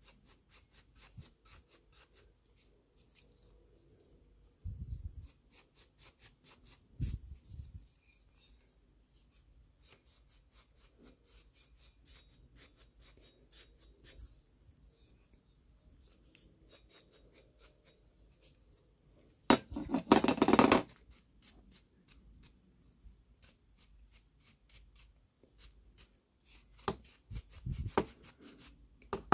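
Gloved hands handling and rubbing an ornate metal stove ring with a cloth: a steady run of soft scratchy rubbing strokes, two dull knocks several seconds in, and a louder scrubbing rub of about a second around two-thirds of the way through.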